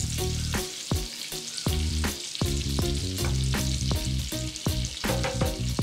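Butter and oil sizzling and bubbling in a ceramic frying pan, with a wooden spatula stirring through it at the start.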